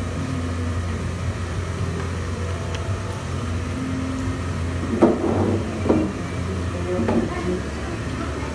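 Steady low background hum, with three short clacks or rustles a little past the middle.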